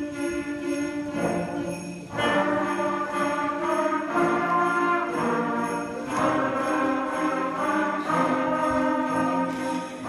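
School concert band playing, trombones, trumpets and saxophones holding chords, with a bright jingling of sleigh bells over it; the band comes in louder about two seconds in.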